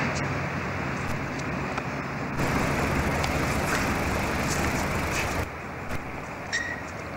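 Steady road traffic noise with a low engine hum, a few faint clicks on top; it drops somewhat quieter about five and a half seconds in.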